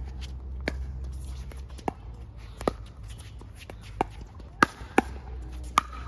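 Pickleball paddles popping against a plastic ball during a rally of soft shots at the net, mixed with the ball bouncing on the hard court. There are about seven sharp pops at an uneven pace, coming quicker near the end.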